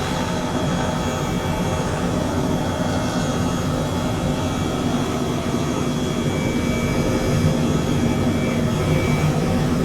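A steady, loud mechanical drone with several steady hum tones running through it.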